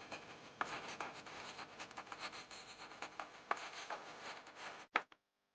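Quiet scratching and light tapping of hands working at something close by, with many small ticks over a soft hiss; it stops about five seconds in.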